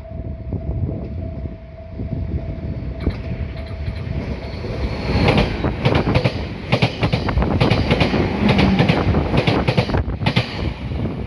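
Meitetsu 3150 and 3500 series electric multiple unit, six cars, passing through the station. The approach rises into a rapid clickety-clack of wheels over rail joints, loudest from about five seconds in until near the end.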